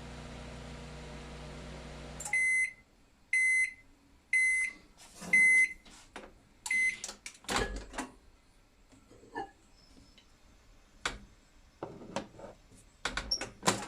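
Microwave oven, modified with a new magnetron and capacitor for more power, humming steadily while it heats a cup of water. The hum cuts off about two seconds in, and five end-of-cycle beeps follow about a second apart. Scattered knocks and clicks follow as the door is opened and the cup handled.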